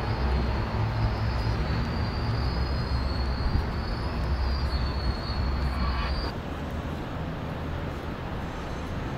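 Passenger train rolling past on the rail viaduct: a steady low rumble with a thin high whine above it. The train sound cuts off about six seconds in, leaving an even city street noise.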